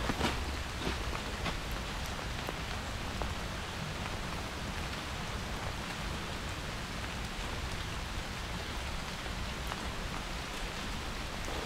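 Steady, even hiss of water, with a few faint clicks near the start.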